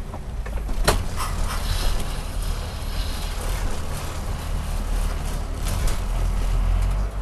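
Cab-over moving truck's engine and drivetrain heard from inside the cab while driving: a steady low rumble that grows a little louder, with cab rattles and a sharp clack about a second in.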